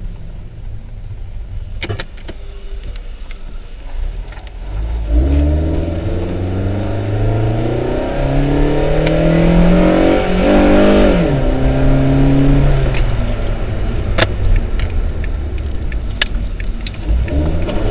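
Suzuki SX4's J20A 2.0-litre four-cylinder with an RRM short ram intake, heard from inside the cabin: it runs at low revs, then from about five seconds in the engine and intake note rises steadily as the car accelerates. About eleven seconds in the pitch drops suddenly as the automatic gearbox upshifts, and the engine carries on pulling at lower revs, with a few sharp clicks near the end.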